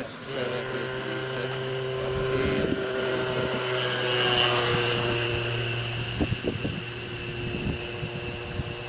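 A steady motor drone with several held tones, growing louder to a peak about four seconds in and then easing a little, with a few soft thumps a little after six seconds.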